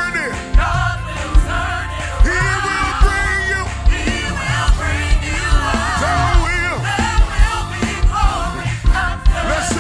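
Live gospel praise-and-worship music: a male lead singer with backing singers over a band with heavy bass and a steady drum beat.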